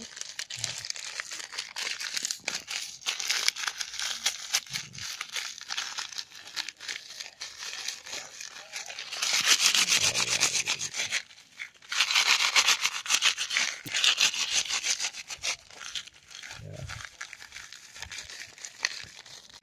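Crinkly plastic snack wrapper rustling and crackling as a sealed packet of biscuits is squeezed and kneaded by hand, crushing the biscuits inside until soft. It grows louder in two spells past the middle.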